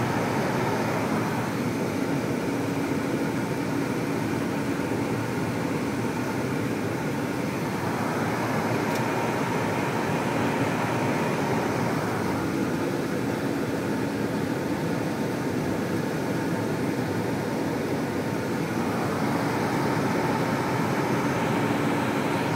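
Steady engine and road noise heard from inside a moving bus, with a faint hum that fades in and out a few times.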